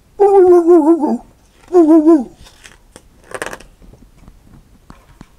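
A man's voice imitating a dog howling: two high, warbling calls, the first about a second long and the second shorter, followed a second later by a short, fainter hiss-like breath.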